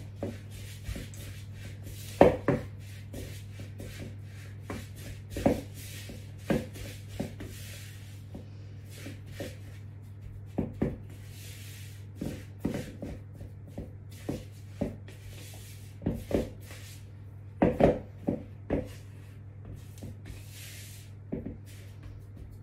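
A spatula scraping and knocking around a mixing bowl as crumbly shortbread dough is stirred with ghee until it binds. Irregular scrapes and taps, with the loudest knocks about two seconds in and again near eighteen seconds, over a steady low hum.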